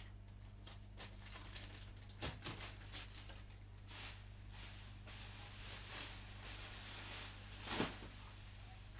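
Faint handling of small plastic parts inside an opened PS5 controller, as a part is pressed into its seat: light rustles and small clicks, the sharpest about two seconds in and a louder one near the end, over a steady low hum.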